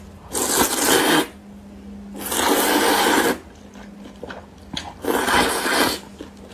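A person slurping noodles from a bowl of spicy soup: three long slurps, one near the start, one in the middle and one near the end.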